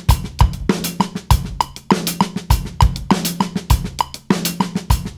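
Acoustic drum kit playing a groove with paradiddle sticking (RLRR LRLL) as sixteenth notes split between hi-hat and snare, the snare landing on 2 and 4, over a bass drum pattern. A metronome clicks steadily along, about twice a second.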